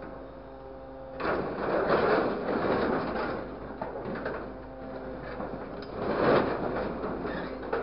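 Grapple crane's engine and hydraulics running with a steady hum, while scrap metal sheeting rattles and scrapes in the truck bed under the grapple: a loud rattling spell from about a second in lasting two seconds, and a shorter one near the end.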